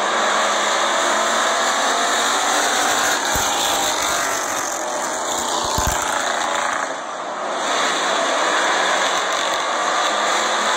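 A pack of Purestock stock cars racing around a short oval track, heard from the grandstand as a loud, continuous engine noise. It dips briefly about seven seconds in.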